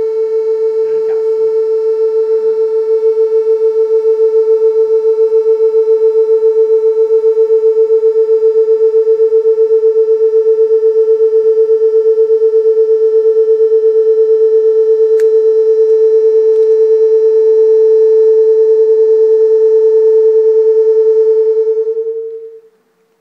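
Electronic soundtrack of an audiovisual art installation: one loud, held mid-pitched tone with fainter overtones and a rapid flutter, plus a single click partway through. The tone fades away near the end.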